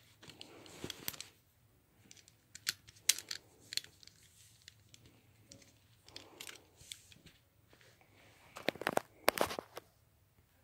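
Plastic Voltron Red Lion action figure being handled and posed: scattered small clicks and rustles, with a quick run of louder clicks near the end.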